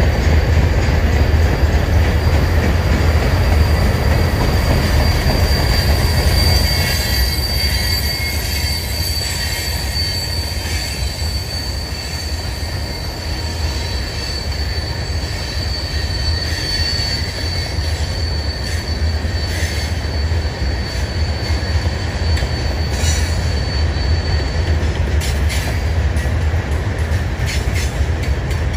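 Freight cars rolling past on a curve with a steady low rumble. A thin, high wheel squeal holds from about six seconds in until a few seconds before the end, and scattered sharp clicks come in the last several seconds.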